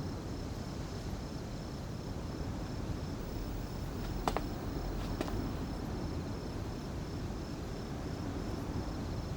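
Crickets chirping in an even, pulsing trill over a steady low background hiss, with two short clicks a little past the middle.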